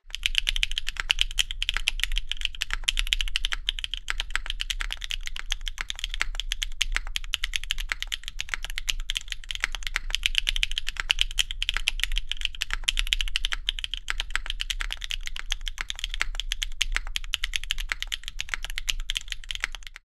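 Fast, continuous typing on a Neo70 mechanical keyboard fitted with Sarokeys Strawberry Wine linear switches: a dense, even patter of keystrokes.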